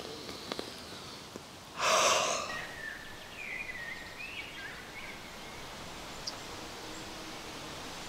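A loud sniff close to the microphone, about two seconds in, lasting under a second: a person breathing in the smell of smoked salmon on a cedar plank. Faint bird chirps and quiet forest ambience follow.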